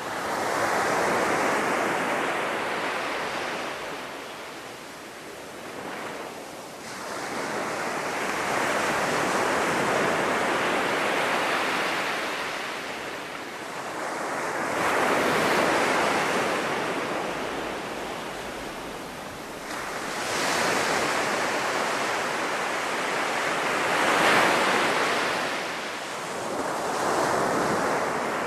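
Sea surf breaking on a sandy beach: a steady rush of waves that swells and ebbs every few seconds as each wave comes in.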